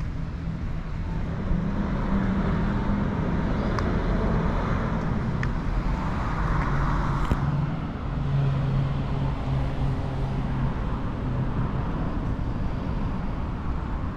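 Road traffic: motor vehicle engines running, with one vehicle passing close and its noise swelling and then falling away about seven seconds in.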